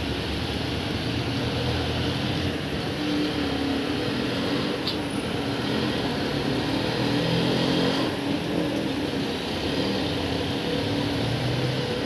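Steady rain shower falling, with the low hum of a vehicle engine running under it.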